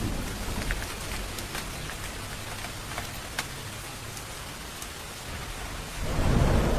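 Steady rain falling, with individual drops ticking sharply now and then. A low thunder rumble dies away in the first seconds, and another begins to build near the end.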